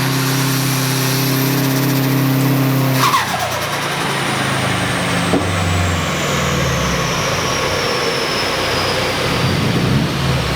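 Turbocharged Subaru WRX flat-four with a VF48 turbo running hard on a dyno, held at steady revs, then the throttle is lifted about three seconds in and the turbo's high whine winds down over several seconds as the engine drops back. The engine has a right-side VVT fault and a suspected faulty injector.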